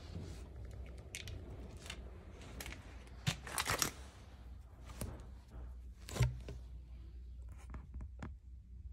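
Hands handling parts on the valve cover of a used Mitsubishi 4G92 engine: scattered clicks, scrapes and cloth rustling over a low hum. There is a cluster of knocks a little over three seconds in, and the loudest sharp knock comes about six seconds in.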